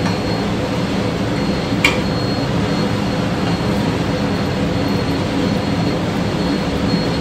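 Steady low mechanical drone, with a single sharp clack about two seconds in, likely the wooden spatula striking the pan during stirring.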